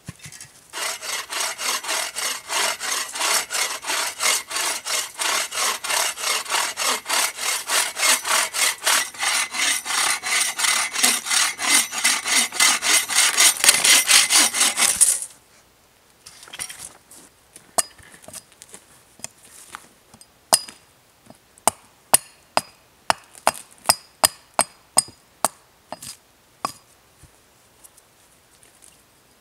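Hand saw cutting through a small dead log with quick, even back-and-forth strokes for about fifteen seconds. It stops abruptly, and after a pause comes a run of sharp hatchet strikes into wood, sparse at first and then about two a second.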